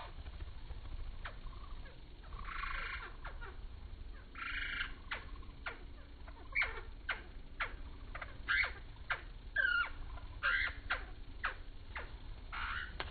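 Hummingbird chip calls and short buzzy trills, slowed down four times and lowered in pitch: a scatter of quick downward-sweeping chirps, thickening after the first few seconds, with a handful of short buzzy bursts over a low steady rumble.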